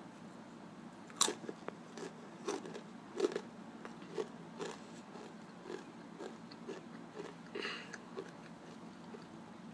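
A boy biting and chewing Takis rolled corn tortilla chips: a sharp crunching bite about a second in, then irregular crunches as he chews.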